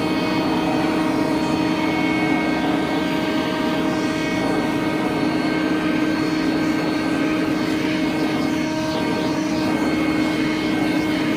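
Battery-powered DeWalt cordless vacuum running steadily with a constant whine as its hose nozzle is drawn along carpet, picking up debris from cutting a hole in a door.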